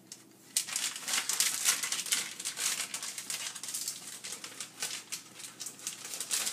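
Transfer tape being peeled slowly off a vinyl backsplash decal stuck to a wall: a dense, fast crackling that starts about half a second in and keeps going.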